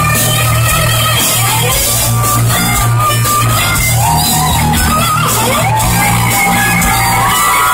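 Live heavy metal band at full volume: an electric guitar lead with notes that bend up and down over a steady bass and drums. It is heard from the crowd.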